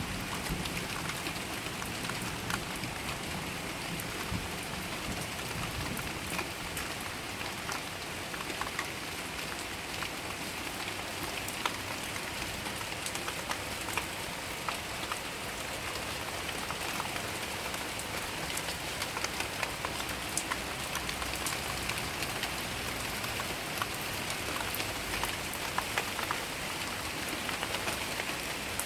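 Steady rain falling hard, with many sharp ticks of individual drops striking close by.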